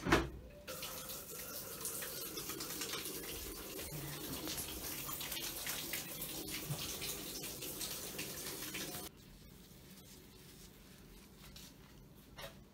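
Water running steadily from a tap into a sink, shut off abruptly about nine seconds in.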